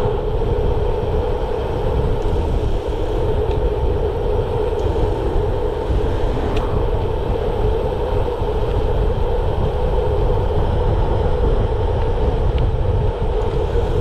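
Steady wind noise on a handlebar-mounted camera's microphone mixed with the tyre noise of a bicycle rolling on a tarmac lane, with a few faint ticks.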